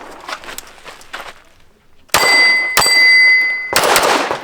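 Pistol shots on steel targets: about two seconds in, several sharp shots come in quick succession, and the hit steel plates ring on with a clear metallic tone.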